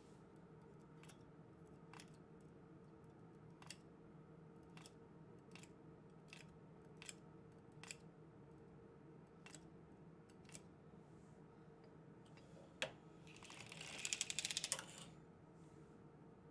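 Circular sock knitting machine needles clicking lightly as they are lifted one at a time by hand to work the short rows of a heel, roughly one click a second. Near the end comes one sharper click, then a short rattling run of rapid clicks.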